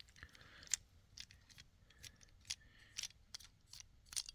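Faint, irregular clicks and light scrapes of black plastic ball-and-socket mount parts being handled and an adapter being pushed into its socket.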